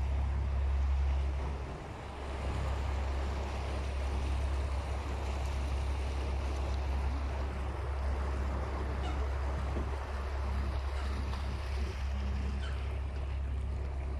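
A tour boat's engine running steadily under way, a constant low hum, with the rush of water and air along the hull. The level dips briefly about two seconds in.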